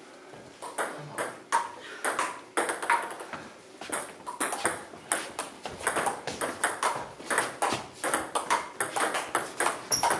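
Table tennis ball clicking off the rubber bats and the JOOLA table during a rally: an irregular run of sharp ticks that comes faster after a few seconds, with fainter clicks from play at a neighbouring table.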